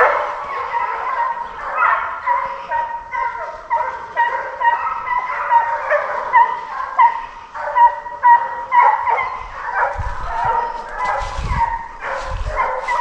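A pack of deer hounds baying on the chase: many short, overlapping barking calls, several a second, from more than one dog. A few low thumps come in near the end.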